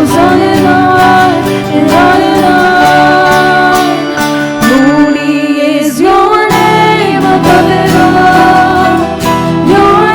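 Christian worship song played by a band, with a sung melody over guitar and drums; the bass drops out briefly about halfway through.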